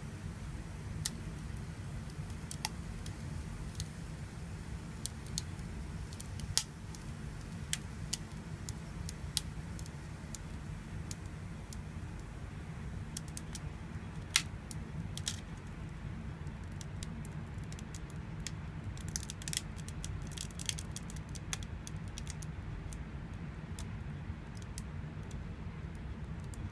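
Scattered sharp ticks and crackles, with a flurry of them about twenty seconds in, over a steady low hum: ice crackling in a frozen, fogging dish as it warms.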